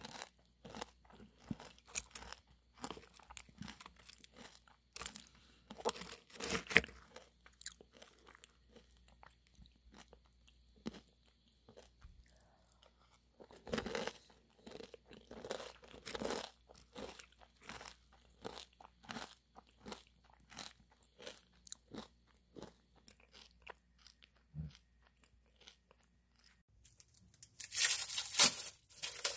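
Protein granola cereal with banana being stirred and eaten with a wooden spoon from a glass mug: scattered crunching, chewing and spoon clicks. A louder, denser clatter near the end.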